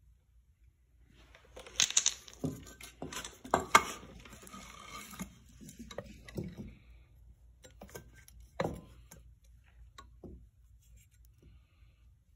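Metal clinks, knocks and scraping as a turbocharger housing and a long metal tool are handled, a busy run of them in the first half, one louder knock a little past the middle, then a few light ticks.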